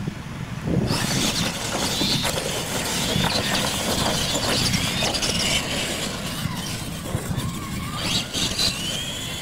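Several radio-controlled monster trucks racing over dirt at once, starting about a second in: the whine of their electric motors rises and falls over the rush of their tyres.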